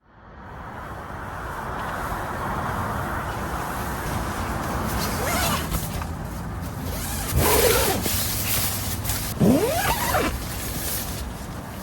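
Steady wind blowing, with a few short sliding, gliding sounds from about five seconds in, the last one the loudest.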